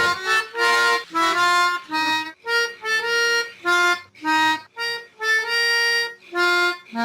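Music: a single melody instrument playing a short tune of a dozen or so separate notes, some clipped and some held, with brief gaps between them.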